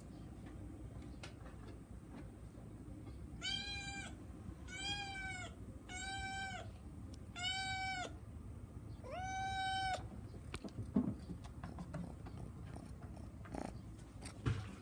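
A cat meowing five times in a row, each meow short and high, about a second or so apart, followed by a few soft knocks.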